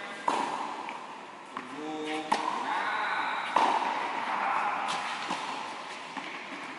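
Tennis ball struck by rackets in a rally, a few sharp pops that echo through the indoor hall, the loudest about two seconds in, just after a brief voice.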